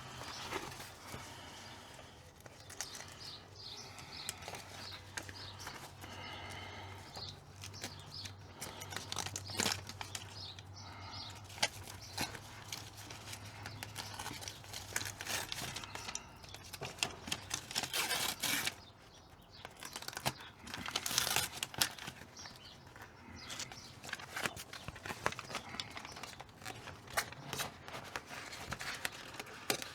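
Sheets of sound-deadening insulation being handled and pressed into place: irregular rustling, crinkling and small clicks, with two louder tearing sounds, about two-thirds of the way through and again a couple of seconds later.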